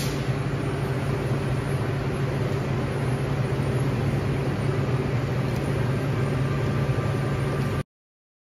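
Steady drone of running industrial machinery, with a low hum over a noisy background; it cuts off suddenly near the end.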